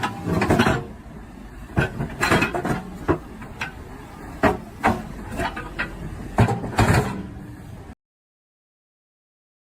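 Irregular knocks and clanks, about a dozen, over a low rumble, cutting off suddenly to dead silence near the end.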